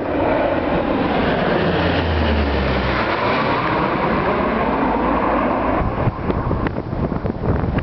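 Four-engine airtanker passing low overhead, its engine drone loud and dropping in pitch as it goes by. Near the end, gusty wind buffets the microphone.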